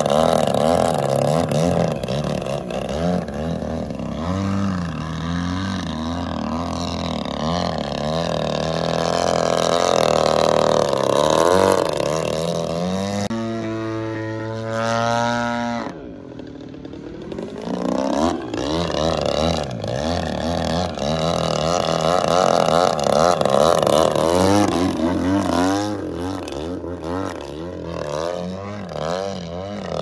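Gasoline two-stroke engine and propeller of a large RC aerobatic plane (76 cc GP-76 turning a 24x9 prop) running through aerobatic flight, its pitch rising and falling with throttle and passes. About halfway it holds a steady tone for a few seconds, then turns quieter briefly before building back up.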